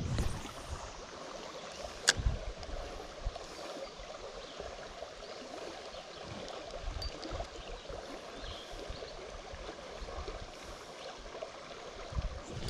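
Steady rush of flowing creek water, with a single sharp click about two seconds in.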